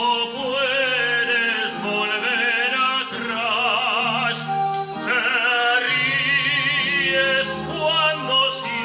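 A man singing long, held notes with a wide vibrato over an instrumental accompaniment.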